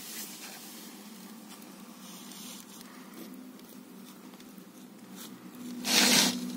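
Small metal clicks and scrapes of an open-end wrench turning an eye bolt to tension a steel guide wire, over a steady low hum. A brief, loud rustle comes about six seconds in.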